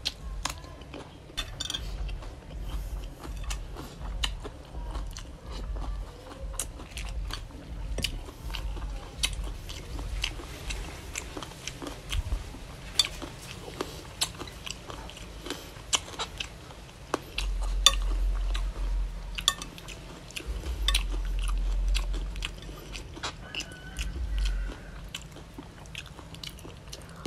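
Close-up mouth sounds of a person biting and chewing crunchy raw okra and spicy chicken-feet salad, with many wet clicks and crunches. A low rumble rises twice, for a couple of seconds each, past the middle.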